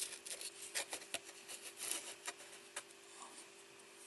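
A small circuit board being handled and set down on cardboard: a string of light, irregular clicks and scrapes over about the first three seconds, then quieter, over a faint steady hum.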